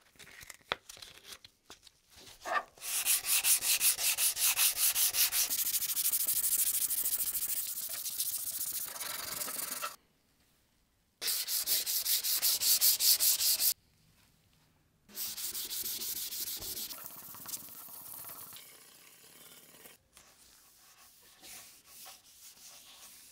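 Hand sanding of an epoxy-coated wooden baseball bat: sandpaper rubbed over the hard resin in quick, even back-and-forth strokes. It comes in three spells with short silent breaks between them, and grows quieter near the end.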